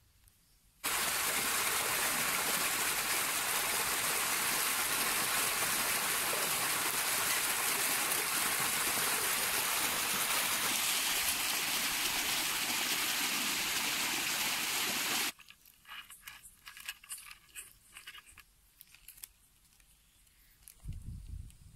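Heavy stream of water gushing from an irrigation pipe into a concrete tank and splashing over rocks: a steady rush that starts about a second in and cuts off suddenly about fifteen seconds in. After it come faint rustles and clicks of a spice packet being poured onto a steel plate.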